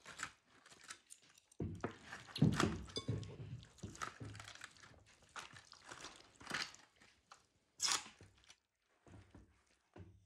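Metal forks scraping, clicking and tearing as they pull roasted ribs apart on aluminium foil, in irregular bursts, with one sharp click about two seconds before the end.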